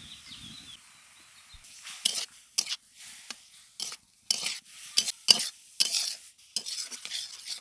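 Steel spatula scraping and stirring against an iron karahi, breaking up fish roe as it cooks in a little water with turmeric and salt. A faint sizzle runs at first, then a series of quick, irregular scrapes starts about two seconds in.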